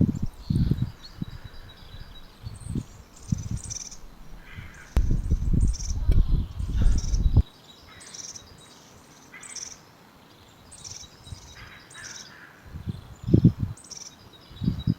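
Small birds chirping repeatedly in short high calls, over a low gusty rumble on the microphone that is loudest from about five to seven and a half seconds in.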